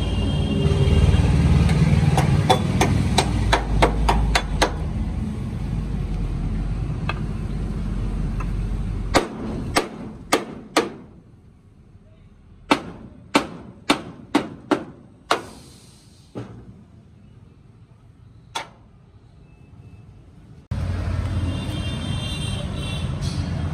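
Hand hammer striking the steel chassis frame of a Tata 2518 truck, sharp metallic blows that ring briefly. There is a quick run of about eight about two seconds in, then groups of strikes spaced out over the middle, and two lone blows later. A low rumble runs under the first part and comes back suddenly near the end.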